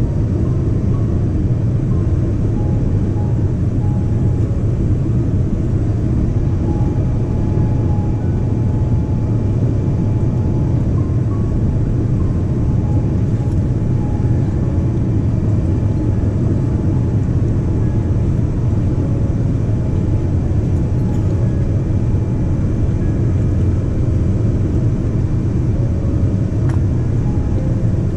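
Steady cabin noise inside a Boeing 787-10 airliner in flight on descent: a constant low rumble of airflow and its Rolls-Royce Trent 1000 engines heard from a window seat.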